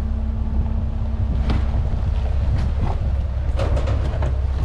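Jeep driving on a dirt trail: a steady low engine and road rumble with wind buffeting the microphone. A few short knocks and rattles come through about a second and a half in and again near the end.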